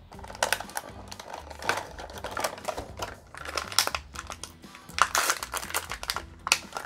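Crinkly plastic wrapper of a small toy accessory packet being handled and torn open by hand, in irregular crackles that are loudest about five seconds in. Soft background music runs underneath.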